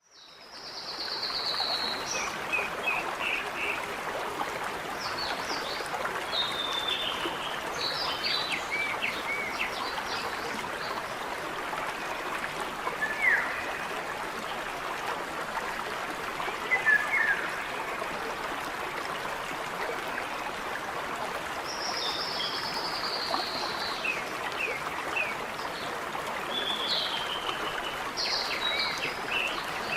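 Small mountain stream babbling steadily over rocks, fading in over the first second or so, with songbirds chirping and whistling now and then above the water.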